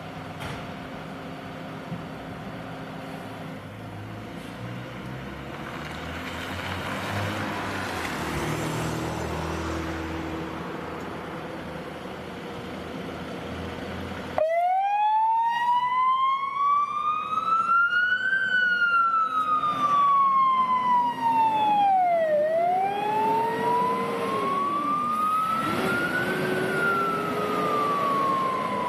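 Volvo FL290 fire engine's diesel engine running and revving as it pulls out. About halfway, its siren switches on abruptly and wails, gliding slowly up and down in pitch, much louder than the engine.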